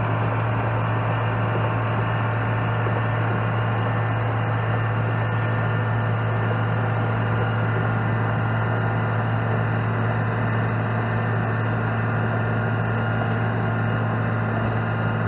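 ABG Titan 226 crawler asphalt paver's diesel engine running at a constant speed, a steady low hum with no changes.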